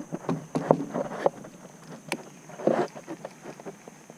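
Scattered knocks and clicks of handling in a small fishing boat, with a short louder sound near three seconds in.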